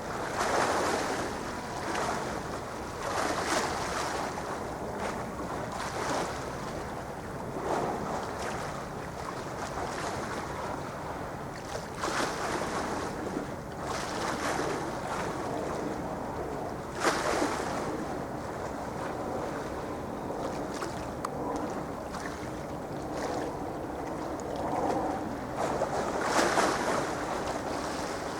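Sea waves washing in, swelling in surges every couple of seconds, with wind noise on the microphone.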